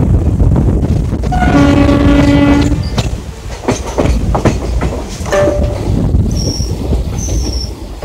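Passenger train running, heard from an open coach door: wheels rumbling and clacking over the rail joints with wind rushing past, and the locomotive's horn sounding one long blast about a second and a half in, then a short toot just after five seconds.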